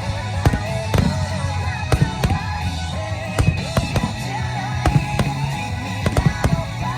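Aerial fireworks bursting in a quick, irregular string of sharp bangs, over music with a steady bass line and a wavering melody.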